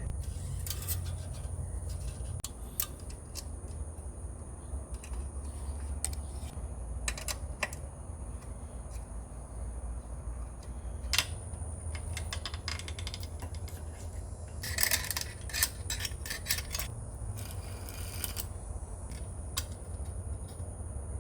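Scattered light metallic clicks and clinks, with short bursts of rattling about three quarters of the way through, over a steady low hum.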